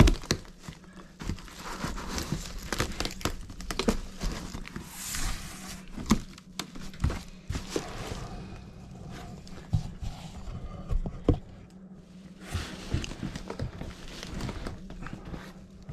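Rustling and crinkling of a cardboard shipping box, its plastic wrap and the foam packing peanuts inside being handled, with scattered light knocks and taps.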